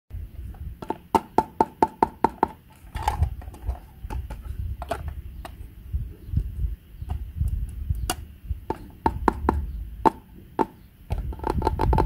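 Plastic clicks and taps from hands handling a small plastic toy washing machine and its hose, with a quick even run of clicks about a second in, over low rustling.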